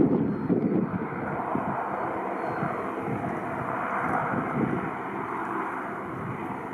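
Airliner engines running with a steady rushing noise, while gusts of strong wind buffet the microphone.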